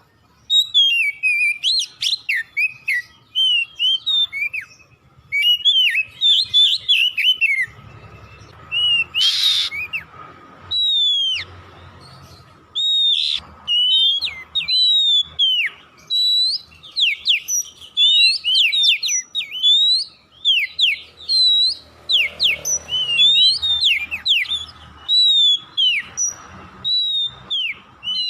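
Oriental magpie-robin (kacer poci) singing: rapid runs of loud whistled notes, sharply sweeping up and down, in phrases broken by brief pauses.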